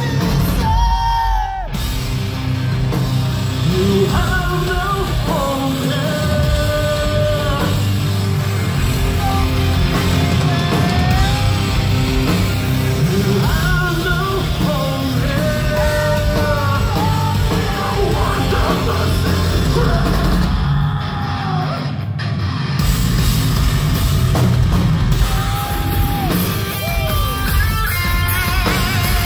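Live metalcore band playing at full volume: distorted electric guitars, bass and drums under a lead vocalist who sings melodic lines mixed with yelled parts. The band stops short twice, about a second in and again about 21 seconds in.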